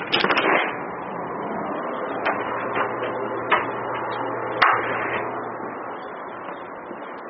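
A door being opened, with a quick clatter from its latch, then four single footsteps knocking on a hard floor, spread unevenly over a few seconds, over a steady hiss.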